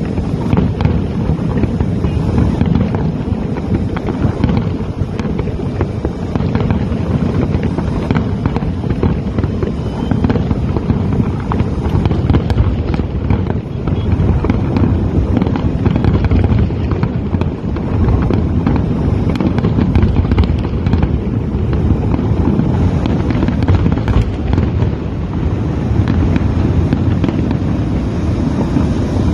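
Fireworks display going off in a dense, continuous barrage of bangs and crackles.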